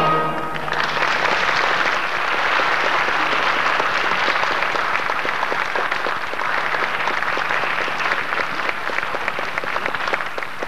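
A theatre audience applauding steadily with dense clapping. The music's last chord dies away in the first second, just before the clapping takes over.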